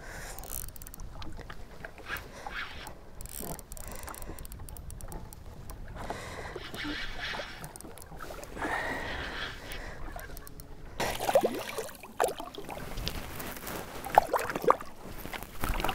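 Water lapping against a fishing boat's hull while a Pflueger President spinning reel is cranked to bring in a small lake trout, with scattered clicks from the reel and line. Near the end there is sharper splashing as the fish is put back in the water.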